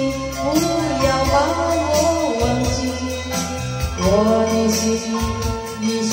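Chinese-language karaoke song: a sung melody over a backing track with a steady bass line and a regular beat.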